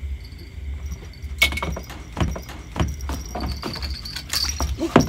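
A quick, irregular run of knocks and clatters, starting about a second and a half in, over a steady low rumble.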